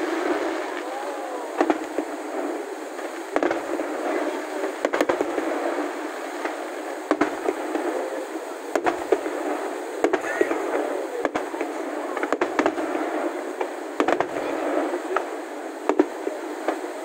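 Aerial fireworks shells bursting, about ten separate bangs a second or two apart, over the chatter of a crowd.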